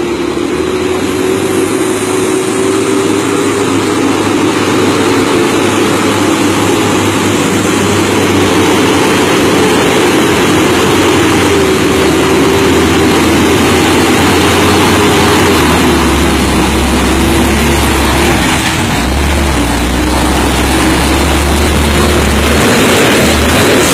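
Diesel engine of a tanker semi-truck pulling slowly through a bend, a steady heavy drone that grows deeper and fuller in the last several seconds as the truck comes up close.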